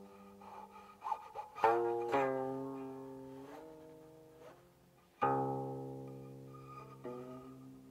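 Guqin, the seven-string Chinese zither, played solo. Single plucked notes ring out and slowly fade, their pitch sliding while they sound as the left hand glides along the string. A cluster of quick plucks comes about a second and a half in, and another strong pluck a little past five seconds.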